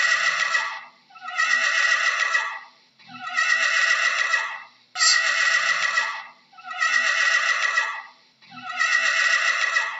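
Horse whinnying over and over: about six separate neighs, each a little over a second long, with short gaps between.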